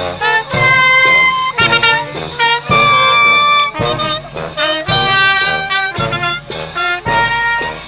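Marching brass band (banda) playing a tune: clarinets, trumpets, trombones and saxophones together, with sharp beat strikes about twice a second.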